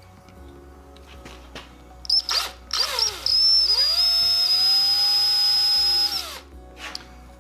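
Power drill boring into a small piece of ebony: a few short trigger blips, then the motor runs up to a steady high whine for about three seconds and stops.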